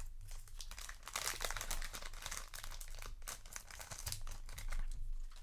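Foil trading-card booster pack wrapper crinkling and tearing as it is handled and ripped open, a dense run of crackles.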